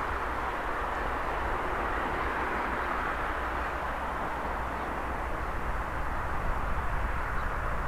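Distant 2M62U diesel locomotive with two-stroke 14D40 engines working under load as it pulls a loaded freight train away from a station: a steady drone with a low rumble, growing slightly louder near the end.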